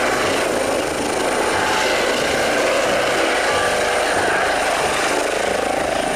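Eurocopter EC135 air-ambulance helicopter hovering low and turning: steady loud rotor and twin-turbine noise with a thin high turbine whine on top.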